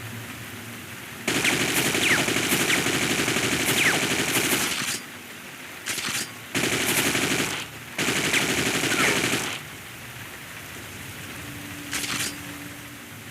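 AK-47 automatic rifle fire sound effect: a long burst of rapid fire lasting several seconds, a very short burst, two more bursts of a second or more, then one short burst near the end.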